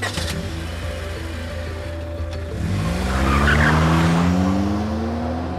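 Small hatchback's engine revving as the car pulls away hard, its pitch climbing for about three seconds, with a squeal of tyres at the loudest point about three and a half seconds in. Background music runs underneath.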